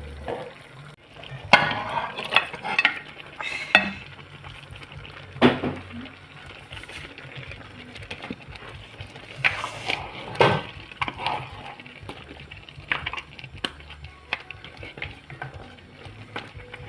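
A cooking utensil clinking and scraping against a pot of soup while stirring, in irregular clatters. They are thickest about one and a half to four seconds in and again around ten seconds.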